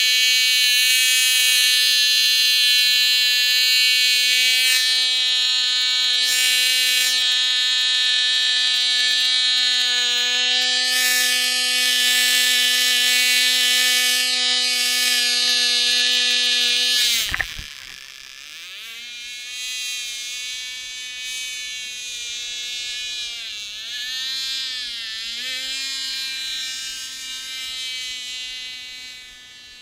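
Cox TD .049 glow engine, a tiny two-stroke model-plane engine, running flat out with a loud, high-pitched, steady buzz. About 17 seconds in, its pitch drops sharply and it gets much quieter as the plane pulls away. It carries on as a faint buzz that rises and falls in pitch as the plane flies around, fading near the end.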